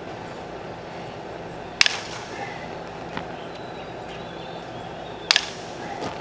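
Two sharp snaps about three and a half seconds apart as the ties binding a bundle of steel concrete reinforcing mesh are cut open.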